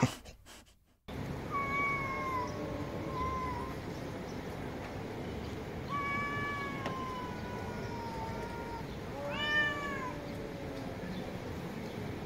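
Domestic cats yowling in drawn-out meows, the sound of two cats in a territorial face-off: two short calls early on, then a long call of about three seconds that slowly falls in pitch, and a louder, arching call near the end.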